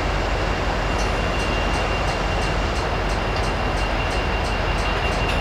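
A train running past close by: a steady, fairly loud rumble and rush of noise, with a thin steady high tone. From about a second in there is a regular high ticking, roughly three times a second.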